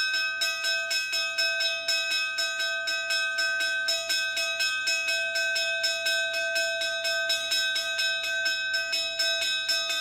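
Altar bell rung rapidly and steadily, in quick even strokes, as the priest blesses the people with the monstrance during Benediction of the Blessed Sacrament.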